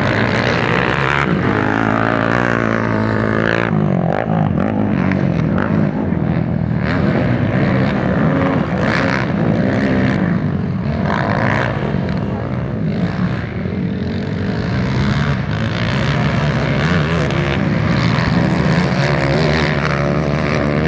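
Several motocross dirt bike engines running on the track at once, revving up and down as the riders accelerate and back off. One engine's pitch sweeps up and down clearly a few seconds in.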